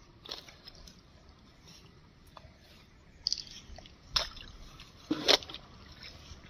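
Handling noise: dry grass and a mesh keep net rustling and crackling, with a few short sharp crunches, the loudest about five seconds in.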